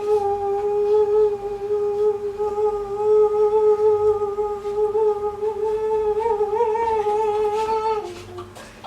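A person humming one long, steady note that wavers slightly near the end and stops about eight seconds in.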